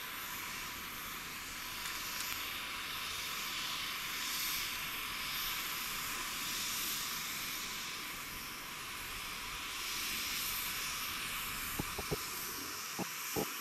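Distant C-130J Super Hercules with its four turboprop engines running, heard as a steady high-pitched rushing noise that swells and eases. A few sharp clicks come near the end.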